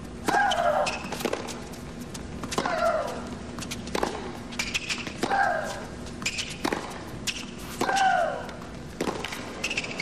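Tennis rally: the racket strings strike the ball about every 1.3 seconds, and on every other shot one player lets out a loud shriek that falls in pitch, while her opponent hits without a sound. Four shrieks come in turn with about eight shots.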